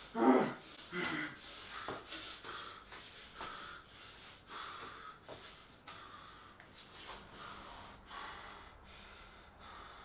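A man breathing heavily in short, uneven breaths, as if catching his breath after shouting. The breaths are strongest near the start and grow fainter and further apart.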